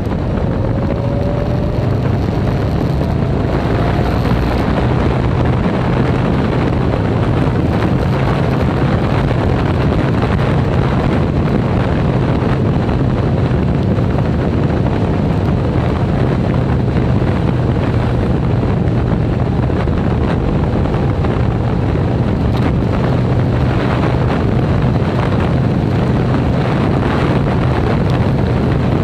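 Motorcycle riding on a wet road: steady wind rush over the microphone over a low, steady engine drone. A faint rising whine in the first few seconds.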